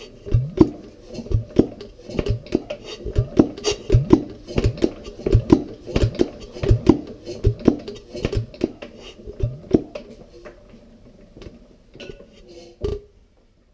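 McDonald SE diesel stationary engine being cranked over by hand without firing: a rapid series of metallic clacks, about two or three a second, that dies away about ten seconds in, with a single knock near the end. It does not catch because the arm that lifts the fuel valve is still missing.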